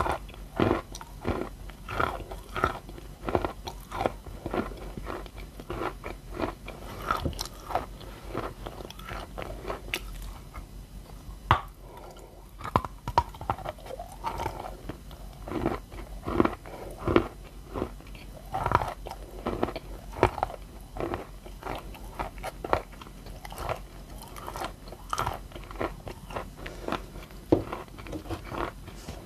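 Close-up crunching of a block of edible clay, bitten and chewed over and over, the wet crunch of the moistened clay. The crunches come in quick irregular runs, thinning briefly about a third of the way in.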